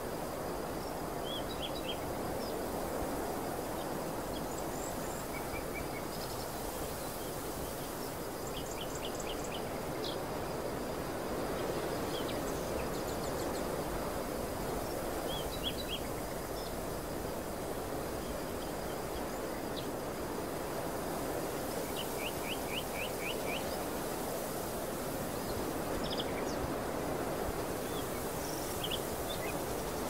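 Open-air field ambience: a steady rushing noise, with small birds calling over it in short, quick, high chirp trills every few seconds.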